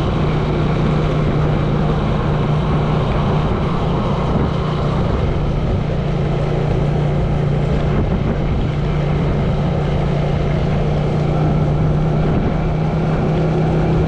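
Small motorcycle engine running steadily at cruising speed, heard from on the moving bike, with wind and road noise.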